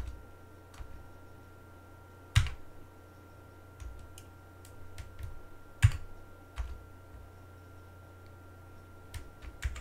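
Scattered key presses on an Amiga computer keyboard: a few separate sharp clacks with pauses between them, the two loudest about two and a half and six seconds in, over a faint steady hum.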